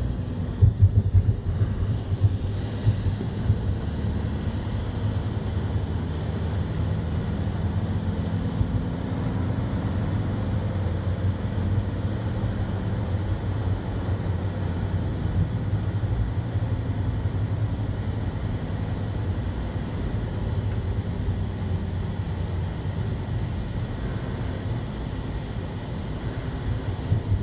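Steady low rumble of a vehicle's engine and tyres on the road, heard from inside the moving vehicle, with a few louder thumps in the first few seconds.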